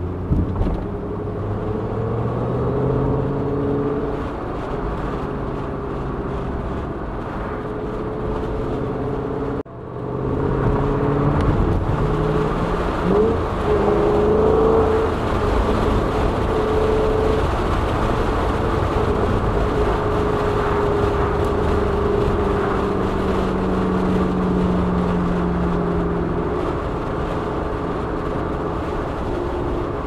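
Shelby GT500's supercharged V8 heard from inside its cabin, pulling up through the gears twice and then cruising steadily, over tyre and road noise. The sound cuts out for an instant about ten seconds in.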